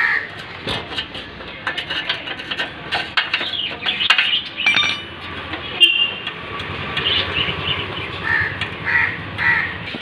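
Metal clicks and clinks of a 19 mm wrench working on a motorcycle's rear axle nut, the sharpest about six seconds in. Crows cawing repeatedly in the background, mostly in the later seconds.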